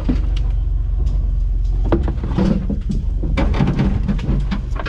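Off-road 4x4's engine running steadily at low speed, heard inside the cabin, with repeated knocks and rattles from the vehicle as it crawls over a rough forest track, busiest about halfway through.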